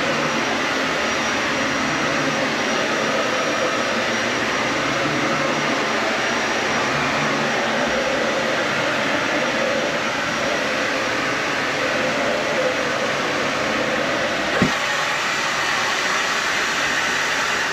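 Dyson Ball Animal 3 upright vacuum cleaner running steadily, with one short knock late on.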